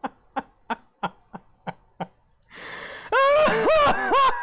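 A man laughing in short breathy pulses, about three a second, dying away over the first two seconds. About three seconds in, louder music with sliding tones comes in.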